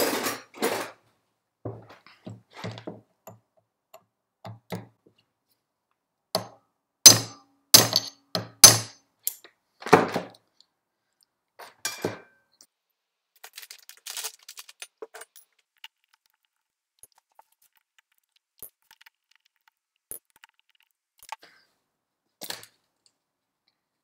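Hammer blows on a hand impact screwdriver, driving out a hard-stuck screw in the motor's gear assembly: four loud, sharp metal strikes in about three seconds, with lighter knocks before them. Scattered light clicks and clinks of metal parts being handled follow.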